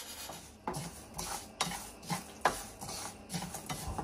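A utensil stirring and scraping rice and relajo spices as they toast in a pan, in repeated strokes about two a second.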